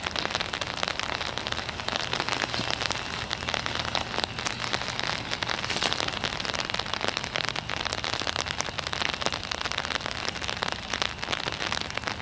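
Steady rain falling: a dense, even crackle of drops with no let-up.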